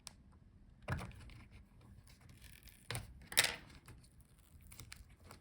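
Light handling knocks and clatter of laptop parts as the palmrest keyboard assembly is freed and lifted out: a knock about a second in, then a louder double clatter around three seconds in.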